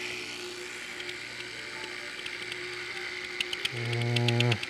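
Fog machine's small electric fluid pump running with a faint steady hum, then from about three and a half seconds in a run of rapid ticking and a louder steady buzz. The pump is moving some fluid but not enough: it is only sputtering out puffs.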